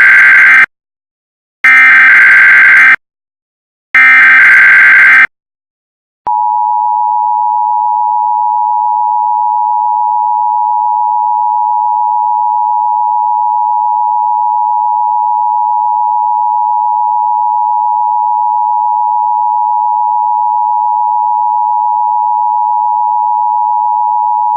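Emergency Alert System audio. Three loud, harsh one-second bursts of the SAME digital header come first, then the two-tone EAS attention signal starts about six seconds in and holds steady as a single unchanging dual tone.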